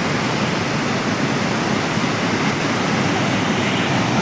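Water from Panchet Dam rushing and falling, a steady loud rush of noise with no breaks.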